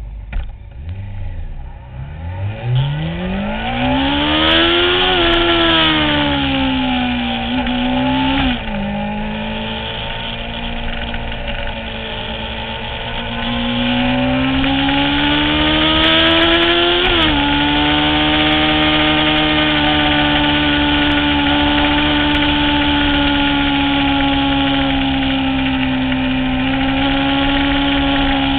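Honda CBR600F4i sportbike's inline-four engine accelerating hard, revs climbing and falling through the gears. It drops sharply at upshifts about eight and seventeen seconds in, then holds steady high revs at speed.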